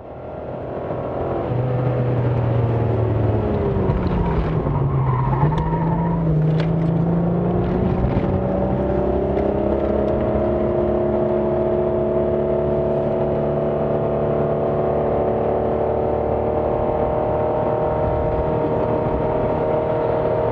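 Alfa Romeo Milano's 3.5-litre engine heard on board at speed on track: the engine note drops about four to five seconds in as the car slows for a corner, then climbs slowly and steadily as it pulls hard out of the corner and down the straight.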